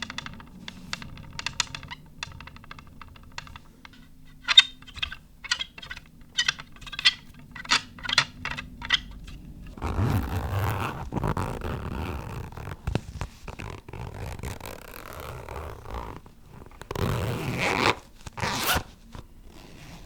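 A run of irregular sharp clicks for about ten seconds, then louder scraping and rasping, ending with a zipper-like pull and a brief higher swish.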